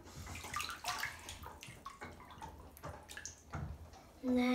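Bathwater sloshing, with small irregular splashes, as a child moves around in a full bathtub.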